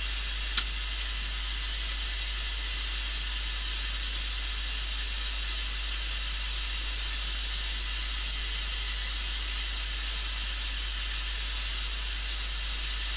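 Continuous white-noise test signal from a loudspeaker, a steady even hiss strongest in the upper range, played so that a sound card can time its delay to a microphone. A single click sounds about half a second in.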